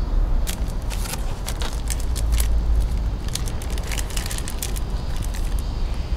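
Plastic film wrapper crinkling and crackling as it is peeled off a convenience-store gimbap roll, in a quick run of sharp crackles that thins out near the end. Under it runs a steady low rumble of street traffic.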